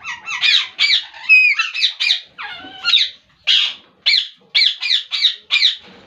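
Alexandrine parakeets giving a quick series of loud, harsh squawking calls, about a dozen in all, a few of them wavering up and down in pitch.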